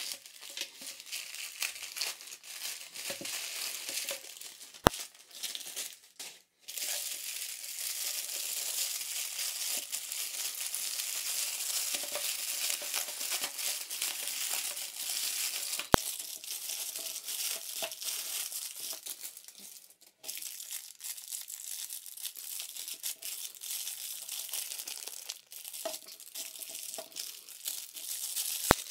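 Plastic packaging crinkling and rustling as a plastic mailer is cut open and clear cellophane bags are handled, with three isolated sharp clicks.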